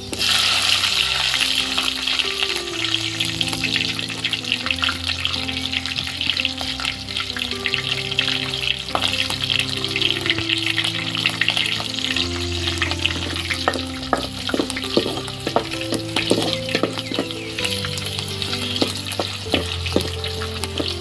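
Sliced garlic and green chillies sizzling in hot oil in a metal kadai over a wood fire. The sizzle starts suddenly as the chillies drop into the oil, and it carries on steadily. Near the end a metal ladle stirs the pan, adding sharp clicks and scrapes.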